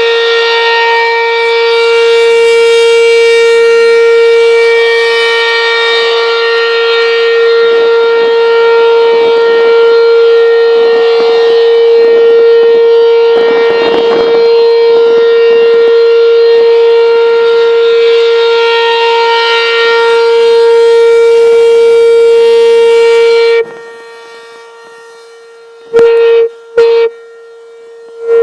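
Outdoor tornado warning siren sounding one loud, steady tone that holds its pitch without rising or falling. About 24 seconds in it drops abruptly much quieter, with a couple of brief loud bursts near the end.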